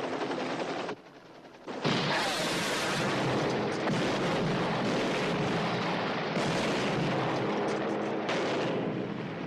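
Sustained gunfire and explosions of a TV-drama battle soundtrack, starting loud and dense about two seconds in after a brief lull.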